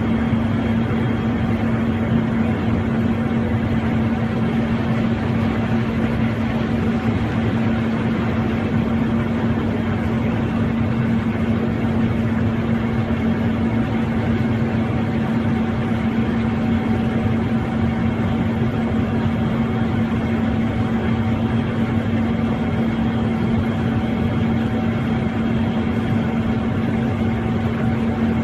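Steady aircraft cockpit noise in flight: a constant engine and airflow drone with a steady hum, unchanging throughout.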